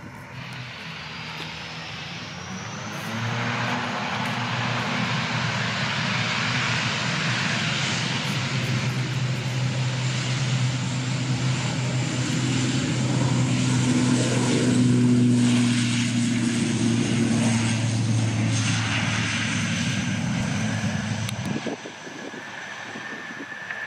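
ATR 72 twin-turboprop airliner taxiing with both engines running: a steady low propeller hum under a high turbine whine. It grows louder to a peak about halfway through as the aircraft comes closest, then drops off suddenly near the end.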